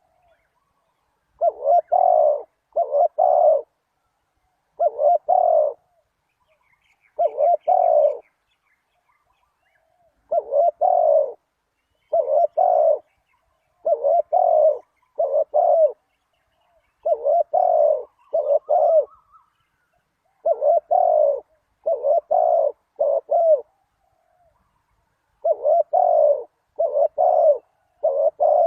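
Spotted dove cooing: low, repeated coos in groups of two or three notes, with short pauses between the groups.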